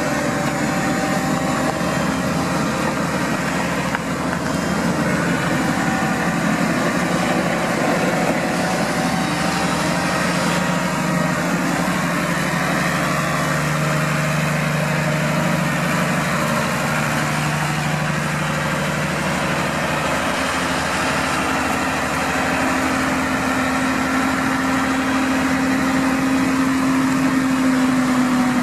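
New Holland TM140 tractor's diesel engine running steadily at working revs, driving a Shelbourne hedge cutter as it trims along a roadside hedge. The engine grows louder as the tractor passes close by about halfway through.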